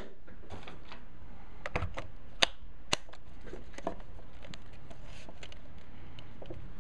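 Small plastic clicks from a camcorder's switches and casing being handled, with two sharper clicks about two and a half and three seconds in, over steady low hiss. With a dead battery the camera itself makes no start-up sound.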